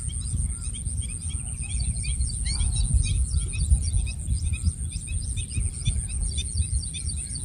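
Wind buffeting the microphone with a low rumble, while many small birds chirp in quick repeated calls. A steady high-pitched whine sits underneath.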